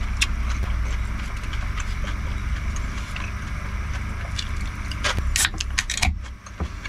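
Small clicks and taps of eating utensils against the dish while eating ramen, with a cluster of sharper clicks about five seconds in, over a steady low hum.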